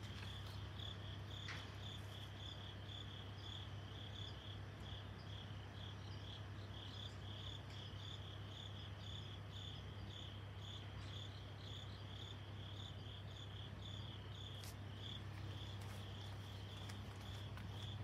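A cricket chirping in an even rhythm, about two chirps a second, over a steady low hum.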